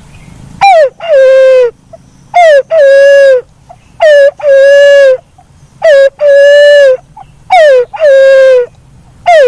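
Black-naped fruit dove (walik kembang) calling loudly: each call is a short falling hoot followed by a longer hoot that drops and then holds steady. The paired hoots repeat about every two seconds, five times over, with a sixth pair beginning at the very end.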